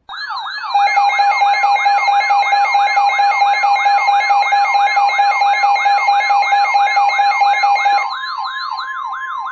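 Weather radio alert: a warbling siren sweeps up and down about three times a second over steady alarm tones, the alarm that comes before a NOAA Weather Radio warning. It gets louder just under a second in and quieter again about eight seconds in.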